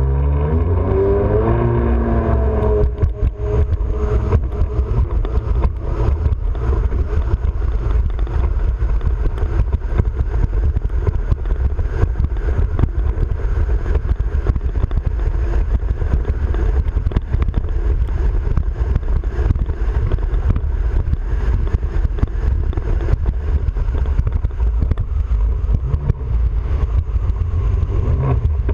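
Jet ski engine rising in pitch as it accelerates over the first few seconds, then running at speed across the water under a steady low rush of wind buffeting the microphone.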